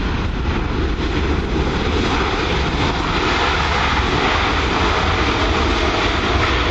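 Boeing 777-300ER's GE90-115B turbofans in reverse thrust during the landing rollout, a steady, loud rushing noise that grows a little brighter about halfway through.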